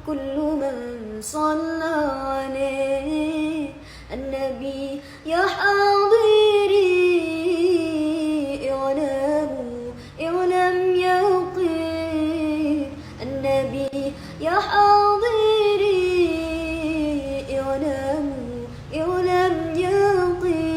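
A solo voice singing an Arabic salawat in long, ornamented phrases with short breaths between them. The singer has a cough and cold.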